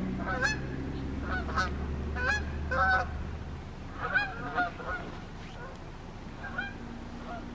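Birds calling: many short calls that bend in pitch, coming in irregular clusters and thinning out after about five seconds. A low steady hum lies under them and stops about three and a half seconds in.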